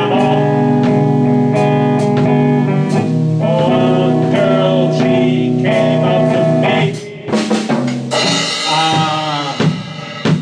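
Slow blues jam: guitar playing held, bending notes over a drum kit keeping a steady beat. The music thins out briefly about seven seconds in.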